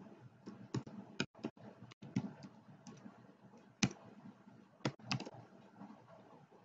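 Computer keyboard keys clicking at an irregular, unhurried pace as text is typed, about two keystrokes a second with a few sharper taps among them.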